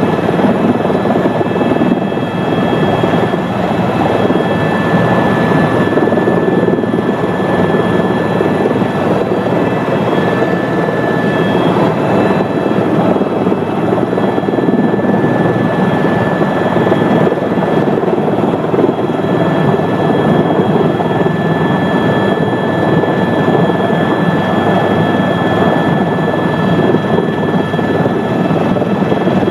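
Helicopter in steady flight: a loud, even rotor and engine noise with a thin steady high whine on top.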